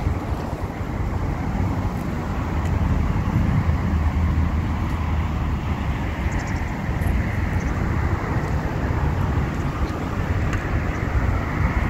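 Steady wind buffeting the microphone outdoors, mostly a low rumble.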